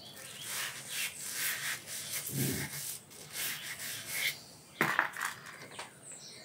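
Copper brush scrubbing back and forth in the belt grooves of a crankshaft pulley, a steady run of quick scrubbing strokes. A sharp knock comes a little before five seconds in.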